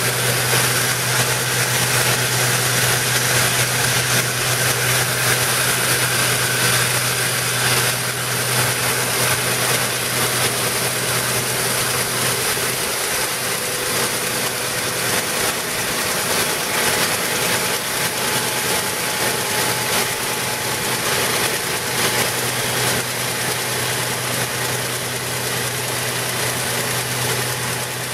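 Stripe Hog line-removal truck at work: its ultra-high-pressure water-blasting head stripping road paint, a loud, steady hiss over the drone of the truck's engine, pump and vacuum recovery. The low drone eases slightly about halfway through.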